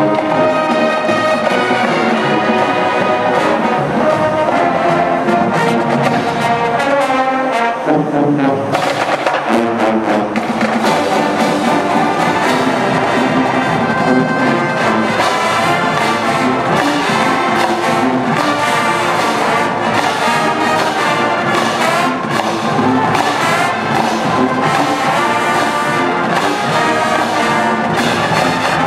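College marching band playing its halftime field show: a full brass section with sousaphones carrying the low line, over the drumline's snares and tenor drums.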